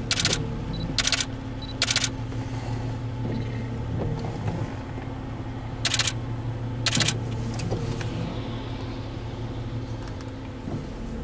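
Steady low hum of an idling vehicle engine, with five short, sharp clicks: three in the first two seconds and two more about six and seven seconds in.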